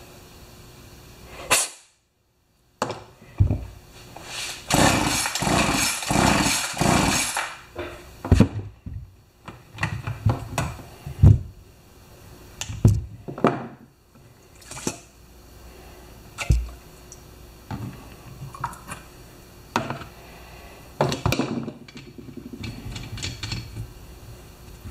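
Hand-work noises at a workbench: scattered clicks, knocks and clatter of a tool and chainsaw parts being handled, with a denser stretch of rattling a few seconds in. The sound drops out completely for about a second near the start.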